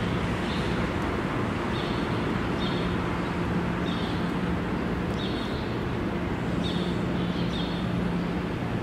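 An MBTA Green Line light-rail trolley humming at low speed over steady street noise, with short high chirps about once a second.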